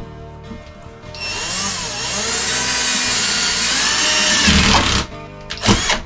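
Power drill boring a hole through a fibreglass shower tray, starting about a second in and running for about four seconds with its pitch wavering, then stopping; a short knock follows near the end. The hole is for injecting expanding foam under the cracked tray.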